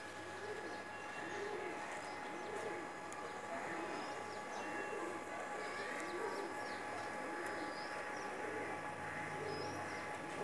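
A pigeon cooing over and over, about one coo a second, with small birds chirping in the background.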